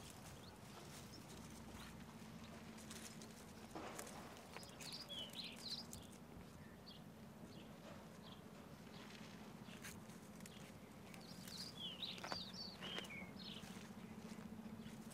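Faint outdoor ambience over a low steady hum, with short high bird chirps about five seconds in and again around twelve seconds, and scattered light clicks.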